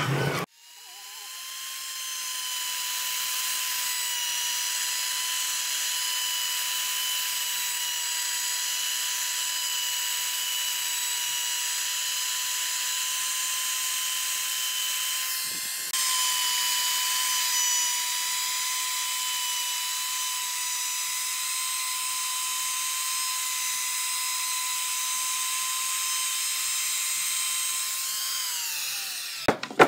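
Compact trim router motor starts about half a second in and runs at a steady high whine while routing a groove into a wooden frame beam, with a brief break about halfway. The whine falls in pitch as the router winds down near the end.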